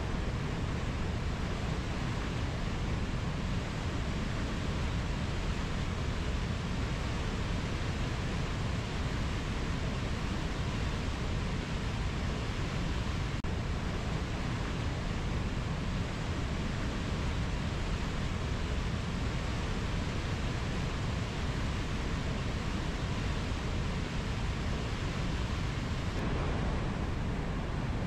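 Mountain river flowing over low rapids: a steady, unbroken rush of water, heaviest in the low end.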